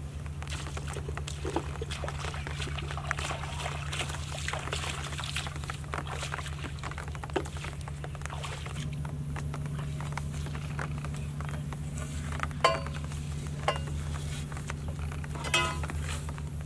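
Bare feet stepping and rustling through wet grass and shallow water, with many small scattered steps in the first half, over a steady low hum. A few sharp knocks with a short ring stand out in the second half.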